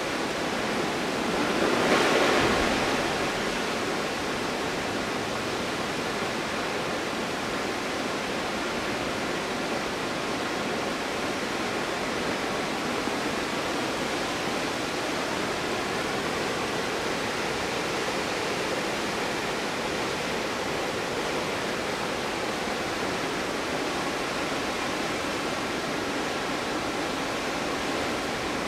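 Steady rushing of the Stuibenfall waterfall, water pouring down through a winter ice-and-snow setting. It swells louder for a second or two about two seconds in, then settles back to a steady rush.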